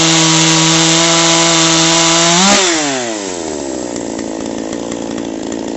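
Two-stroke chainsaw engine held at full throttle, then released about two and a half seconds in, its revs sliding down to a steady idle.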